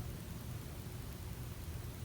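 Steady low hum and faint hiss in the pause between snores, with no snore sounding.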